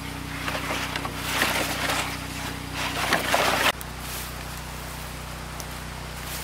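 A motor running steadily, with irregular bursts of hissing noise over it that stop abruptly a little under four seconds in.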